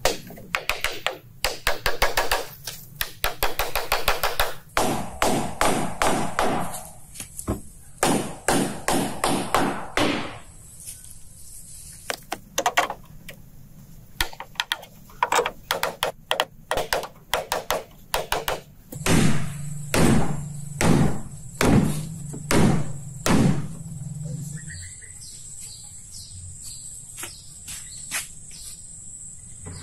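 Hand tools striking wood: a long series of hammer and chopping blows in uneven bursts, with a run of heavier, ringing strikes at about two a second in the second half.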